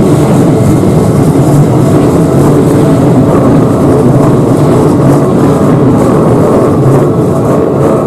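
Electric commuter train running across a railway level crossing: a loud, steady noise of the passing cars that eases slightly near the end as the last car clears.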